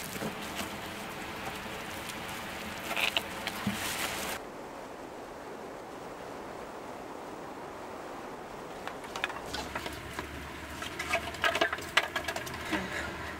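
Crinkly rustling of a woven plastic sack being twisted shut and gripped by hand. This gives way to several seconds of steady quiet background noise, then more scattered rustling and knocks of handling near the end.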